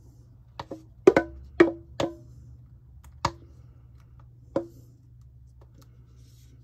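A spoon knocking against a stainless steel mixing bowl while the last of a pie filling is scraped out, each knock leaving a short metallic ring. There are about eight knocks: a quick run in the first two seconds, then two more spaced a second or so apart.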